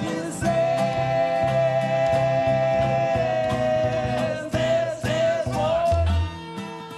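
Live acoustic band music: a male singer holds one long note for about three seconds, then a shorter second note, over strummed acoustic guitar, violin and upright bass.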